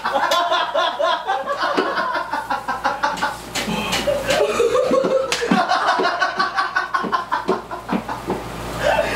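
Several men laughing hard together, with a few sharp smacks mixed in.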